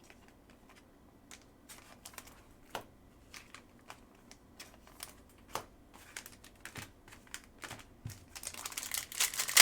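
Trading cards and foil packs being handled: scattered light clicks and taps of cards through most of the stretch, then the crinkling of a foil pack wrapper from about the last second onward.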